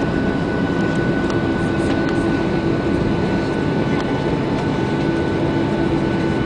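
Boeing 737-800 cabin noise while taxiing: the steady hum and whine of its CFM56 turbofan engines at low power, heard from a window seat over the wing. A second, lower whine joins about four seconds in.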